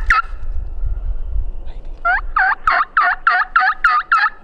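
Wild turkey calling: a short run of quick notes right at the start, then, about two seconds in, a longer run of about eight evenly spaced notes lasting two seconds. A low rumble sits under the first half.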